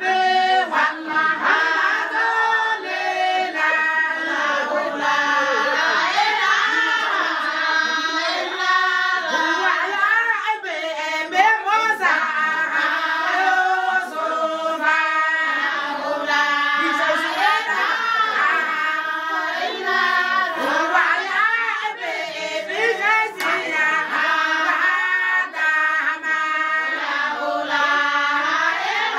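A group of women singing together in chorus without pause, with hand claps.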